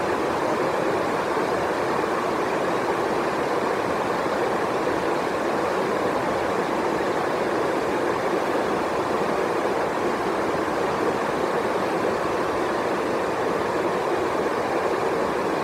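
Heavy rain pouring steadily, an even, unbroken hiss.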